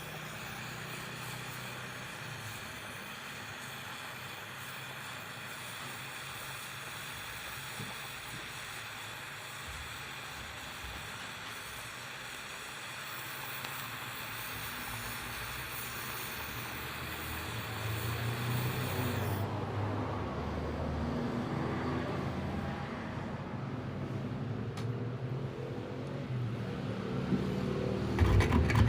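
Gas welding torch flame hissing steadily, then the hiss cuts off about two-thirds of the way through, leaving low rumbling and handling noise.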